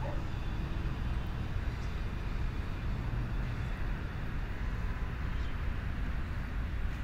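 Steady hum and rumble of distant city road traffic.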